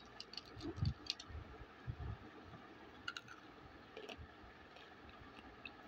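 Faint sharp clicks of hard roasted nakumat (baked clay) pieces knocking against each other and a steel plate as a handful is picked up. A few dull crunches follow as the clay is bitten.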